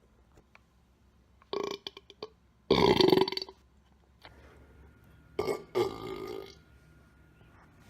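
A man belching loudly three times. The longest and loudest burp comes about three seconds in, and another follows about two seconds later.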